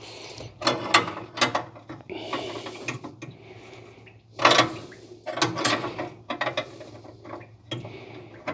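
Flare nut wrench clicking and scraping against a transmission cooler line fitting on the radiator as it is worked loose, in irregular metallic clicks with a louder knock about four and a half seconds in.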